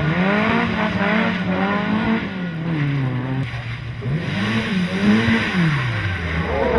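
Mk1 Ford Escort rally car's engine revving hard through corners, its pitch climbing and dropping several times as the driver lifts off and gets back on the throttle, with a lull about three seconds in.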